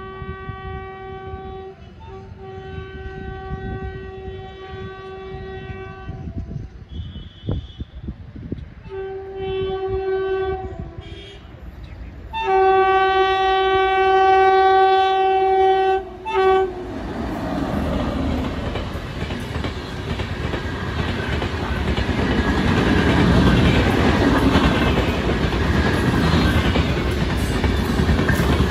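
WAP7 electric locomotive sounding its horn in several long blasts as it approaches at speed, the loudest near the middle. From about seventeen seconds in, the train runs through past the platform with the rising, steady rush of the coaches on the rails.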